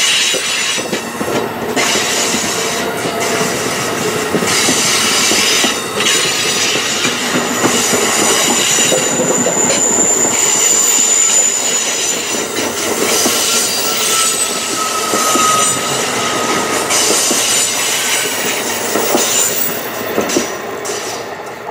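Amtrak passenger train's stainless-steel Amfleet coaches passing at speed: a steady rush and clatter of wheels on rail, with brief high-pitched wheel squeals around the middle. The sound fades near the end as the last car clears.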